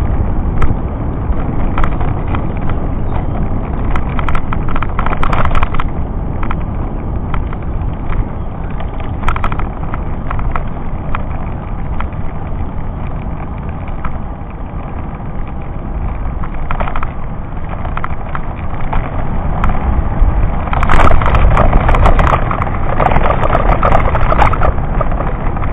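Wind buffeting the microphone and rumble from moving along a rough asphalt road, a steady noise that grows louder for a few seconds about three-quarters of the way through.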